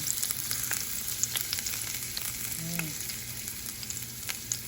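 Garlic sizzling in hot cooking oil in a frying pan, a steady hiss with scattered crackles as it starts to brown.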